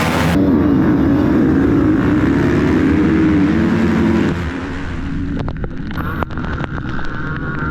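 Motocross bikes' engines running hard on the track, with wind on the microphone. About four seconds in the sound drops abruptly to a quieter engine drone with a few sharp knocks.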